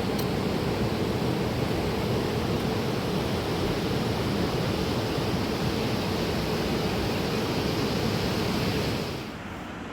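Steady rushing of water, a dense even noise that drops away abruptly about nine seconds in.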